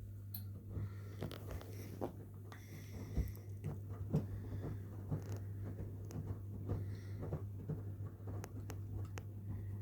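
Front-loading washing machines running a wash cycle: a steady low hum under irregular soft knocks and sloshes of laundry tumbling in the drum.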